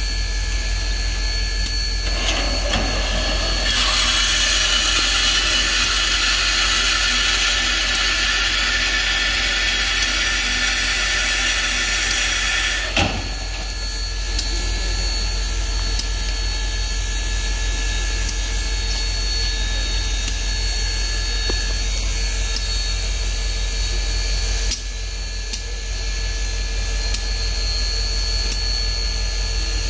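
Big Boy 4014 steam locomotive standing at work, with a steady mechanical hum and whine from its auxiliary machinery. A loud hiss of steam starts about two seconds in and stops abruptly after about ten seconds with one sharp knock.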